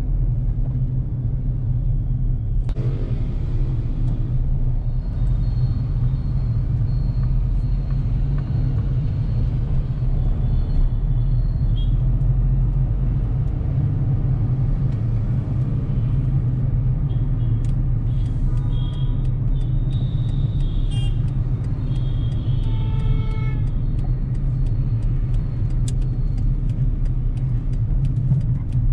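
Car driving slowly on city streets: a steady low rumble of engine and road noise. Several short high-pitched tones come and go over it, most of them about two-thirds of the way through.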